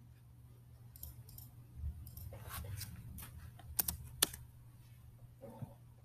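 Computer keyboard typing and mouse clicks: a scattering of irregular key and button clicks, the sharpest two about four seconds in, over a steady low electrical hum.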